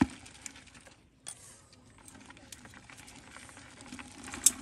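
Metal tongs scraping and clicking among rocks and dry soil, with scattered light clicks and one sharp click about four and a half seconds in.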